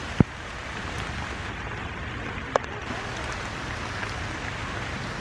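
Steady rain falling on leaves and the ground, an even hiss, with a sharp tap just after the start and a smaller one about halfway through.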